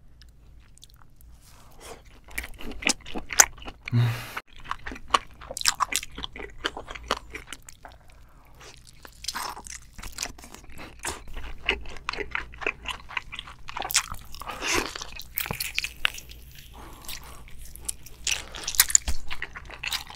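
A person biting and chewing seafood, with many crisp crunching clicks, starting about two seconds in.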